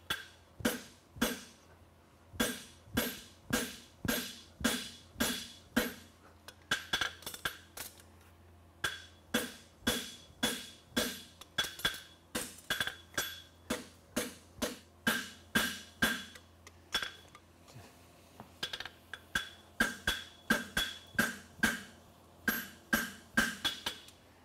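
Hand hammer striking a red-hot steel horseshoe on a Scott Mighty Boy farrier's anvil, about two blows a second, each with a bright metallic ring from the anvil, with a short pause about two-thirds of the way through. This is a farrier forging the shoe at the anvil.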